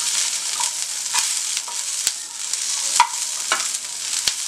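Green chillies sizzling as they fry in oil in a kadai, stirred with a slotted metal spoon. Several sharp clicks of the spoon against the pan stand out over the steady hiss.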